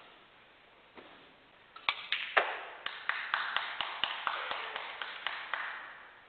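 A snooker shot: a sharp click about two seconds in as the cue strikes the cue ball, then a run of sharp clicks about four a second over a light hiss, fading after about three seconds.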